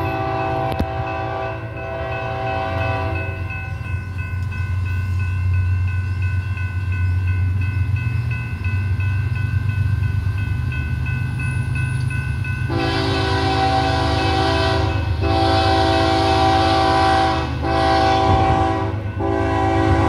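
Diesel locomotive air horn sounding several notes together over the low rumble of the approaching train. One blast ends about three seconds in. From about two-thirds of the way through come two long blasts, a short one and another long one: the standard long-long-short-long grade-crossing signal.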